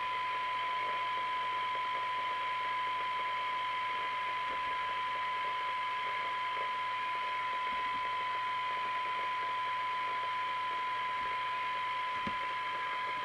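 Amstrad CB901 CB radio's receiver playing a steady test tone through its speaker, mixed with a layer of hiss: a weak test signal being received while the receiver's IF transformers are tuned for best sensitivity.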